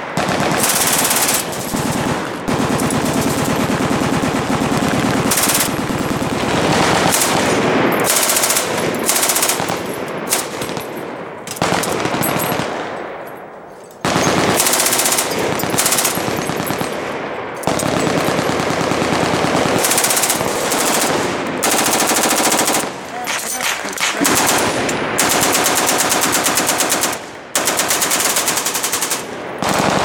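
Machine guns firing long, rapid bursts of automatic fire, one run after another with short breaks. The firing slackens about halfway through, then starts again suddenly and loudly.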